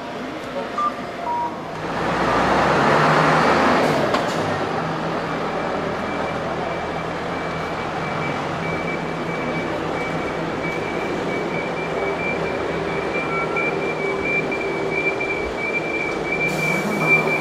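A vehicle running, heard from on board. A loud rush of hissing noise comes about two seconds in, then a steady hum with a thin high whine.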